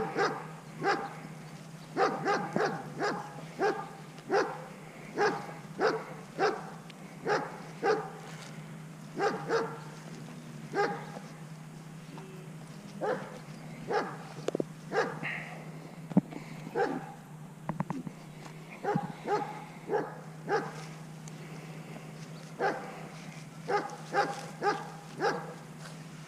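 A dog barking repeatedly, in runs of quick barks broken by short pauses, over a steady low hum.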